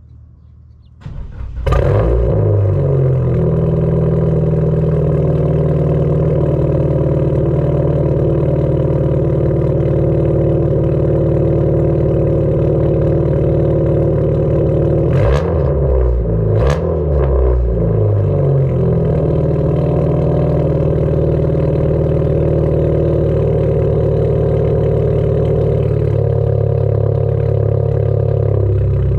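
Dodge Neon's four-cylinder engine starting up about a second in and then idling through its exhaust, which has a dull tone. About halfway through, the engine is revved a couple of times before settling back to a steady idle.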